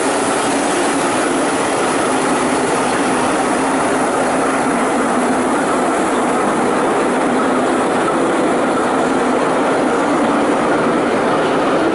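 Steady engine noise of a diesel shunting locomotive standing at idle, a constant mechanical hum that holds level throughout.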